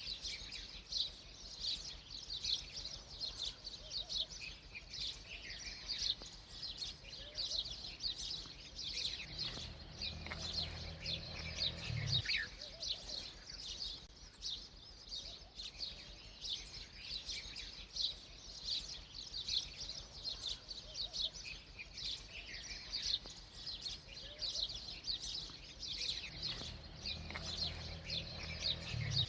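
Many small birds chirping continuously in quick, overlapping calls. Twice, for two to three seconds each, a low steady drone joins in and then cuts off suddenly.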